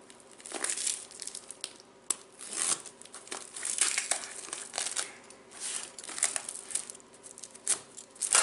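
Clear plastic wrap crinkling and tearing in irregular bursts as it is slit with a utility knife and peeled off a cardboard box, with a couple of sharp clicks.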